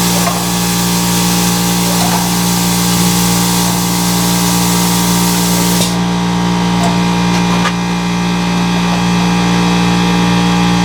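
Electric air compressor running with a steady hum, refilling its tank, under a loud hiss of air that cuts off abruptly about six seconds in while the compressor keeps running.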